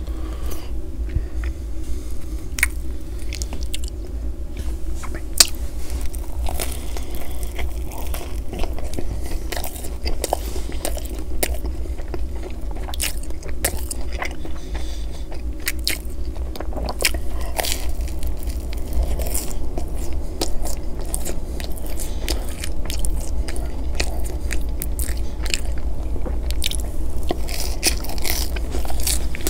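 Close-miked eating: biting and chewing pizza crust, with irregular crunches and wet mouth clicks, over a steady low hum.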